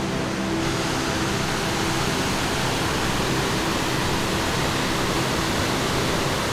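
Waterfall: a steady, dense rush of water pouring over a rock ledge into a pool.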